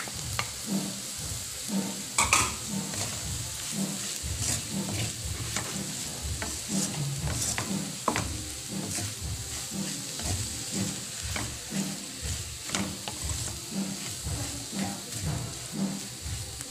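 A wooden spatula stirring and turning flaked milkfish in a hot pan, in a steady rhythm of soft strokes about twice a second with an occasional click against the pan, over a light sizzle.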